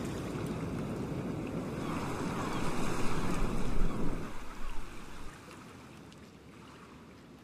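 Sea waves washing on the shore with wind. It swells to a louder, uneven rush about three seconds in, then drops to a softer wash a little after five seconds.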